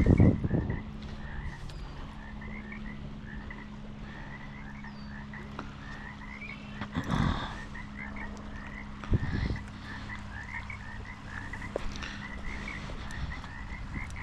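Frogs calling in a steady chorus of short chirps, several a second, over a low steady hum. Louder brief rustles or knocks at the start, about seven seconds in and about nine seconds in.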